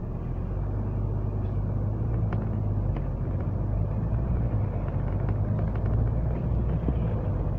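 Double-decker bus engine droning steadily as the bus drives along, heard from inside the upper deck, getting louder at the start as it pulls through the junction, with a few light rattles.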